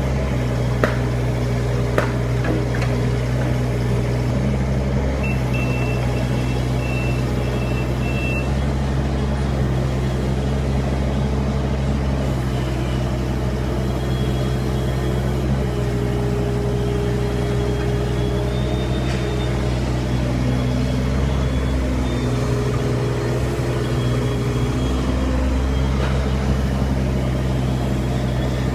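Kubota KX41-3V mini excavator's diesel engine running steadily under hydraulic work, its note shifting up and down a few times as the load changes.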